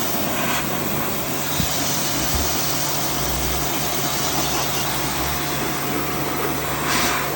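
Electric pressure washer running steadily, its motor hum under the even noise of the water jet, washing mud out of a window air conditioner's clogged condenser.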